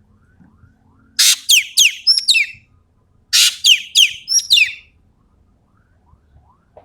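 Common green magpie (Sumatran ekek keling) calling in two loud bouts, each a harsh rasp followed by a quick run of down-slurred whistled notes.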